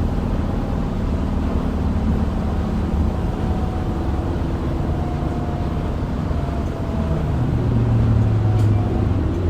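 Isuzu Erga city bus heard from inside the cabin while driving: a steady low diesel engine drone with a faint whine, the engine note growing stronger near the end.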